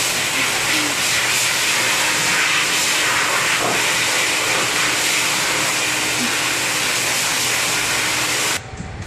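High-velocity pet grooming dryer blowing a steady rush of air as a wet dog is dried, switched off abruptly near the end.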